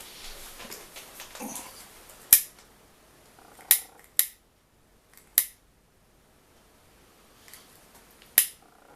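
A handful of sharp, separate clicks and snaps, five in all, from small tools and parts being handled during bench work on an amplifier.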